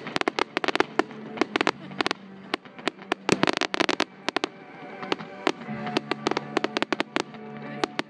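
Fireworks display: aerial shells bursting in rapid, irregular bangs and crackles, densest about three and a half seconds in, with music playing underneath.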